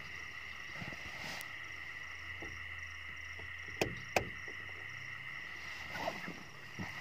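Bedding and a sleeping bag rustling and shifting as someone settles down to sleep in a car, with two sharp clicks close together about four seconds in. A steady high-pitched drone sits in the background.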